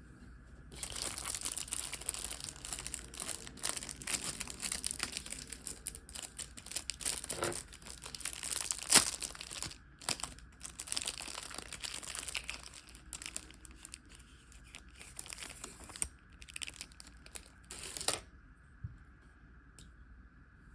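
Packaging being unwrapped by hand, crinkling and tearing in irregular handfuls for about seventeen seconds, with one sharp crack about nine seconds in.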